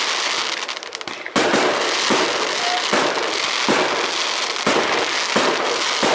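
Fireworks bursting overhead: sharp bangs about once a second over a continuous dense crackle of crackling stars. There is a short lull just before a loud bang about a second in.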